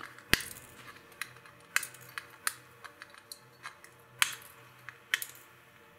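Flush side cutters snipping the soldered LED leads off a circuit board, each cut a sharp click, several in an uneven series about a second apart.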